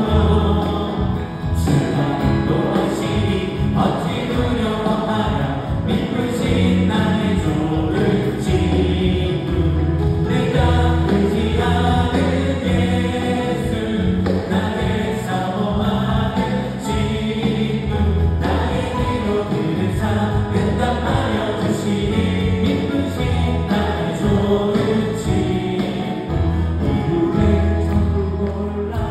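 Live contemporary Christian worship song: several singers on microphones singing together over a band of keyboard, electric guitar, bass guitar and drums, with a steady beat.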